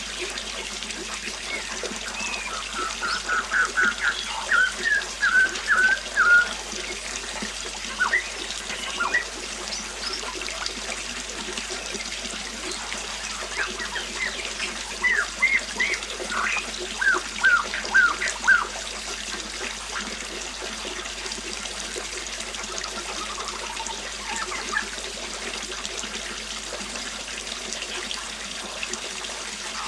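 Steady flowing river water with birdsong over it: a bird sings runs of short repeated high notes, once about three seconds in and again around fifteen seconds in, with a fainter run later.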